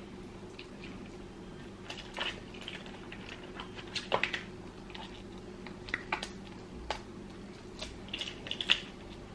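Cooked blue crab shell being cracked and picked apart by hand: a scatter of sharp snaps and clicks, thickest about four seconds in and again near the end, over a steady low hum.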